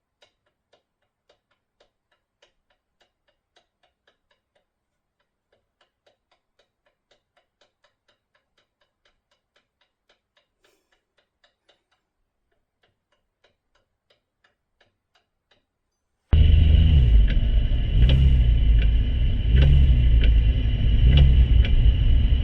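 Porsche 996 Turbo Tiptronic making a repeated faint clicking, roughly two clicks a second and unevenly spaced: the clicking fault the owner is chasing. About sixteen seconds in, a much louder steady rumble with a high whine starts suddenly, which sounds like the engine running, and clicks still come through it about every second and a half.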